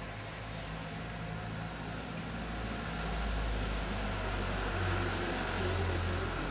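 Low hum of a vehicle engine running nearby, growing louder a few seconds in and then holding steady.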